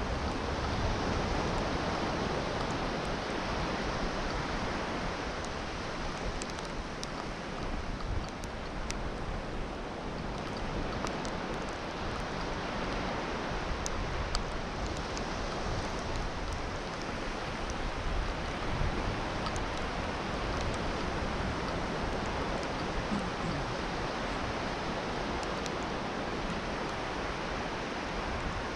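Sea surf washing steadily onto a beach: an even, unbroken hiss with a low rumble underneath.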